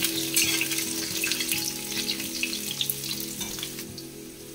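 Potato cubes sizzling as they fry on high flame in hot mustard oil in a metal kadai, with a metal spatula scraping and clinking against the pan as they are stirred. The stirring strokes thin out and the sizzle gets quieter near the end.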